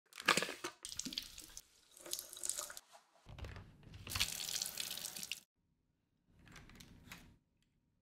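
Water running from a tap in short bursts, then a longer steady rush from about three seconds in to about five and a half seconds, as washable vacuum parts are rinsed. A fainter rush follows near the end.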